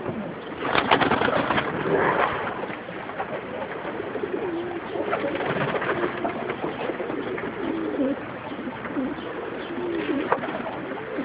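Many domestic pigeons cooing in a wooden loft, overlapping low, wavering coos repeating throughout, with a short burst of noise about a second in.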